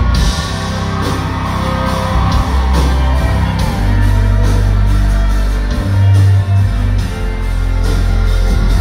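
Live band playing amplified music: acoustic and electric guitars over a steady beat and a deep bass line.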